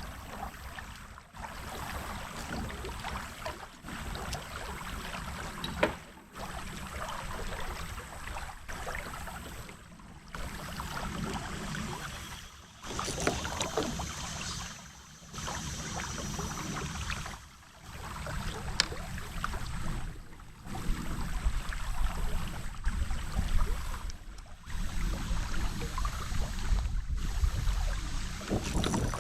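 Water noise around a kayak on a creek: a splashy rush that swells and drops every two to three seconds, over a low rumble.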